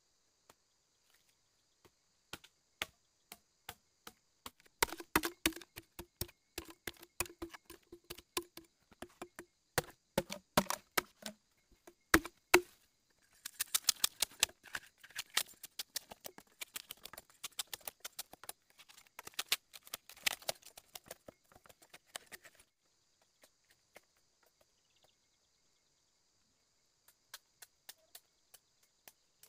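Machete chopping into a green bamboo pole: a quick run of sharp strikes, several a second, from about two seconds in until about three quarters of the way through, thinning to a few light knocks near the end. Insects keep up a steady high buzz behind the chopping.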